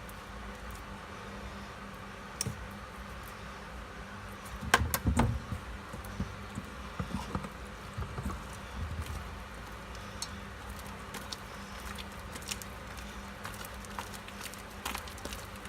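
Fluffy slime being kneaded by hand: scattered soft squelches and sticky clicks, with a louder cluster about five seconds in.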